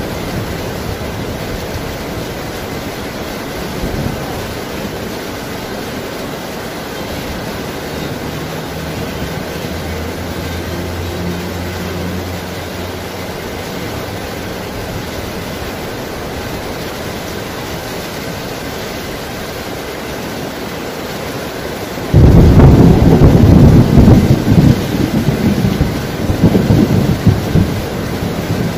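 Steady hiss of heavy rain, with a faint low rumble of distant thunder near the middle. About three-quarters of the way in a loud thunder rumble sets in suddenly and keeps rolling.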